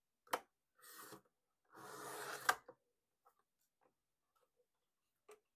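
Fiskars sliding paper trimmer cutting card stock: a click, then two passes of the blade carriage along the rail, a short rasp about a second in and a longer one that ends in a sharp click, followed by a few light taps and a click near the end.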